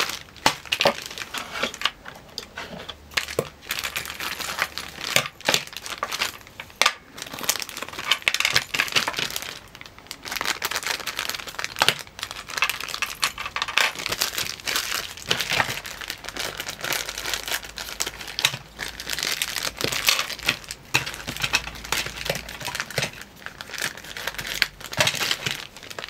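Thin clear plastic packaging bag crinkling and rustling in the hands as it is opened and emptied, with light clicks of small plastic toy parts being set down on a table.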